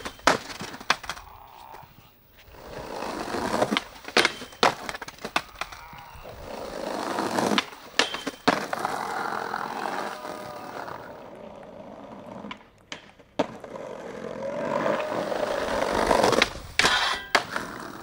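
Skateboard rolling on brick paving, growing louder on each approach to a metal handrail, then the crack of the pop, the trucks scraping along the rail and the board clacking down on the ground. This happens about three times in a row.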